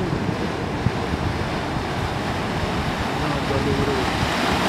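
Sea surf washing and splashing, with wind buffeting the microphone: a steady rushing noise throughout.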